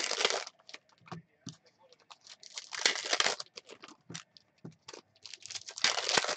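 Foil trading-card packs being torn open and crinkled, in three loud tearing bursts about three seconds apart. Between them, short clicks and rustles of the cards being handled.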